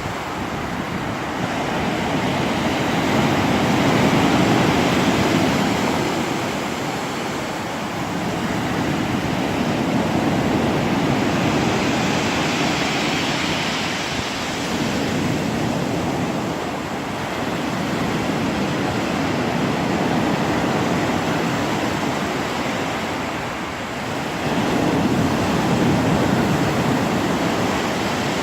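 Black Sea surf: waves washing onto the shore, a steady rush of water that swells and eases every several seconds.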